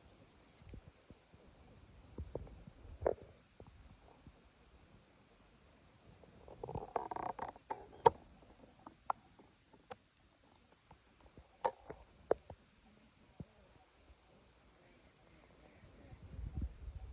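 Insects chirping steadily in a fast pulsing rhythm, with scattered sharp clicks between about eight and twelve seconds in and a brief pitched sound just before them.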